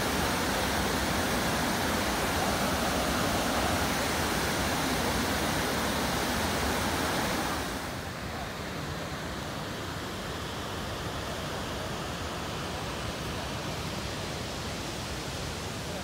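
Waterfall in spate after heavy rain, water rushing steadily over the ledge. About eight seconds in the sound cuts sharply to a quieter, duller rushing noise.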